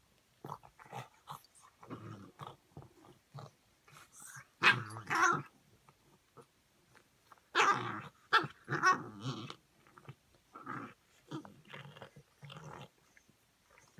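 Shar-Pei dogs grunting and growling in short, irregular bursts, the two loudest about five and eight seconds in, as a puppy noses at an adult dog's belly trying to suckle.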